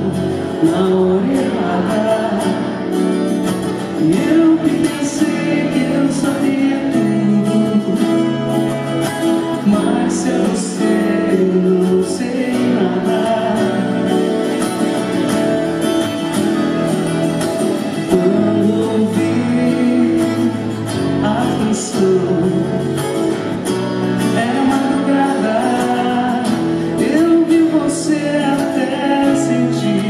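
A woman singing a song into a microphone while playing an acoustic guitar, performed live.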